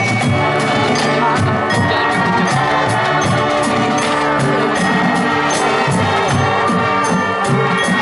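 Marching band playing: sustained wind and brass chords over a steady beat of drums and front-ensemble percussion.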